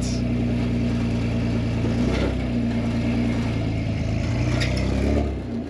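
Toyota rock buggy's engine running at low crawling revs as it climbs and turns on top of a large boulder, revving up briefly a couple of times, mostly near the end.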